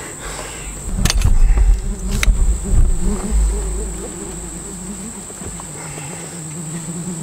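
Insects buzzing: a steady high drone, and a lower wavering buzz like a fly or bee close by. For the first few seconds a strong low rumble with two sharp clicks lies under it.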